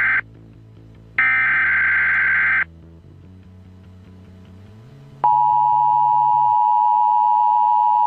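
Mock Emergency Alert System header: one burst of screechy digital data tones ends just after the start, and a second runs from about one second in to about two and a half seconds. After a pause, a steady two-tone EAS attention signal starts about five seconds in. Quiet low sustained music notes change pitch underneath.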